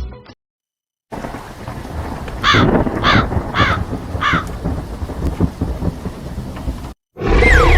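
Thunderstorm and rain ambience, a steady rumbling wash of noise, with four short, harsh caw-like calls a little over half a second apart about two and a half seconds in. It breaks off briefly near the end before a new loud effect with a falling whistle begins.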